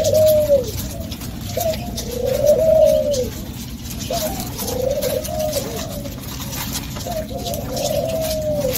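Spotted doves cooing: four drawn-out coos, each rising then falling in pitch, spaced about two seconds apart.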